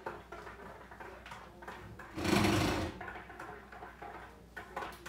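Lid rattling and clicking in quick succession on a pan of soup boiling hard on a gas burner, with a louder rush of noise lasting under a second about two seconds in.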